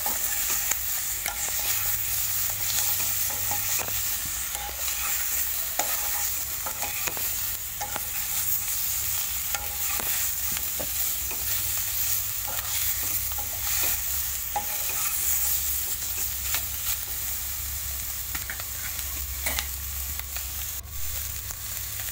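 Raw chicken and potato pieces sizzling in a hot, dry kadhai with no oil while a metal spoon stirs them: a steady hiss with scattered scrapes and taps of the spoon against the pan.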